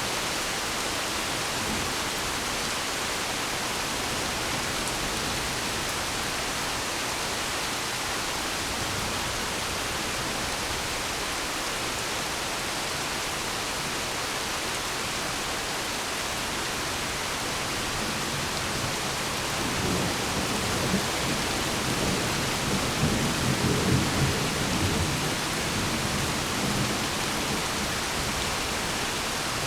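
Steady rain hiss, with a rolling rumble of thunder that swells up about two-thirds of the way in and rumbles on for several seconds before fading.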